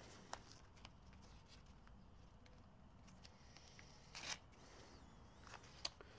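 Near silence with faint handling noise at a manual screen-printing press: a few soft clicks and a brief rustle about four seconds in.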